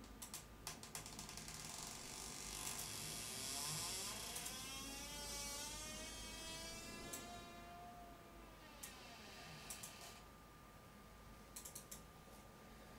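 Faint clicks and taps of crystal and hematite beads handled in cotton gloves, a few near the start and more near the end. In the middle a rush of noise swells and fades over several seconds.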